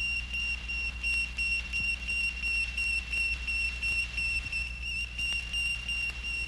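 Steady high-pitched electronic whistle-like tone with a slight regular wobble, over a low hum: a spaceship-cabin sound effect on a vintage children's record.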